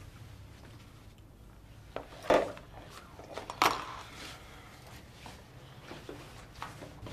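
Crockery being set down on a table: two loud clatters about a second and a half apart, followed by a few lighter clinks of dishes and cutlery.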